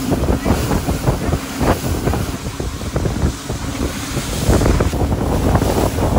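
Heavy wind buffeting on the microphone over the rush of water and spray from a boat running at speed across open sea, a little louder from about four and a half seconds in.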